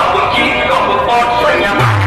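Loud DJ music blaring from a truck's stack of horn loudspeakers: a wavering melody, with a deep bass note coming in near the end.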